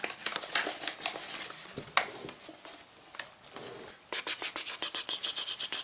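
Paper rustling and crinkling as hands handle a folded paper boat, with scattered light clicks. About four seconds in, a fast, even run of high ticks starts.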